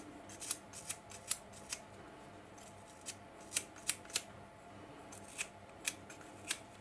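Fibreglass scratch brush scrubbing a small piece of model rail clean, heard as short, sharp, irregular scratches about one or two a second over a faint steady hum.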